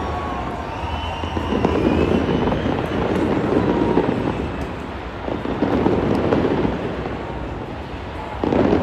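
Fireworks display: shells bursting into a continuous rumble and crackle that swells and fades in waves, with a sudden loud surge near the end.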